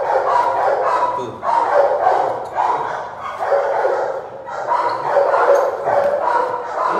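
Three-month-old puppy yipping and growling in short repeated bursts, about one every half second to a second, while it tugs on a jute bite tug.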